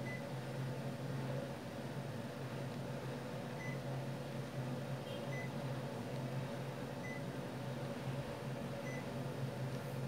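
Panasonic CS-PC5PKJ mini split indoor unit running with a steady fan hum, giving five short high beeps, the last four nearly two seconds apart. Each beep is the unit acknowledging a button press on its remote.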